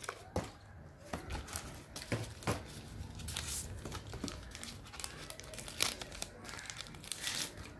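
Thin clear plastic bag crinkling and rustling as it is handled and opened, in irregular crackles. A couple of plastic clicks near the start come from handling the transmitter.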